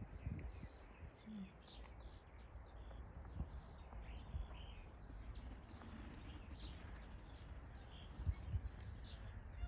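New Zealand fantail (pīwakawaka) calling: a run of short, high, squeaky chirps, each dropping in pitch, a few every second. A low, uneven rumble runs underneath.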